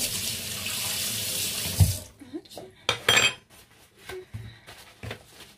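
Water running for about two seconds, ending with a knock. Then a metal spoon clicks and scrapes against a bowl as a coffee scrub mixture is stirred.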